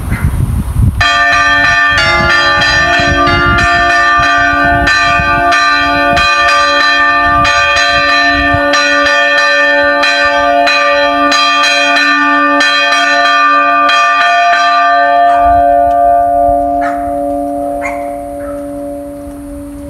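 Church bells ringing in quick repeated strikes, starting about a second in. The strikes stop about 15 seconds in and the ringing tones die away slowly.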